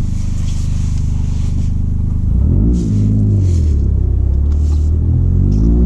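Toyota GR Corolla's turbocharged 1.6-litre three-cylinder engine, fitted with an FI aftermarket exhaust, running steadily, then revving up and back down about two seconds in and rising again near the end, with brief hisses along the way.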